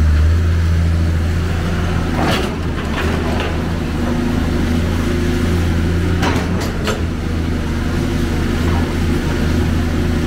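Hyundai Robex 290LC excavator's diesel engine running steadily under working load, heard close to the engine hood. Clusters of sharp knocks and clatters come about two seconds in and again about six seconds in, as the bucket works the broken masonry rubble.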